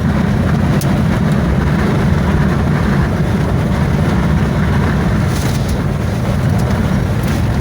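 Strong gusting wind buffeting the microphone: a loud, steady low rumble.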